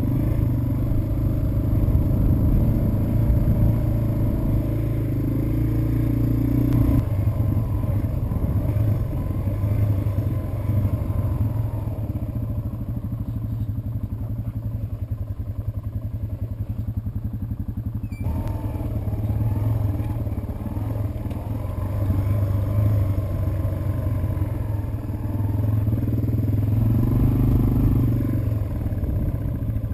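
Yamaha TW200's single-cylinder four-stroke engine running as the motorcycle rides along a dirt trail, heard from on the bike.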